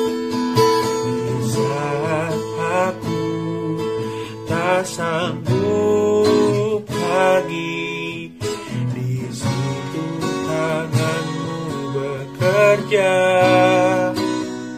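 A young man singing an Indonesian worship song refrain over strummed acoustic guitar, holding some notes long with vibrato.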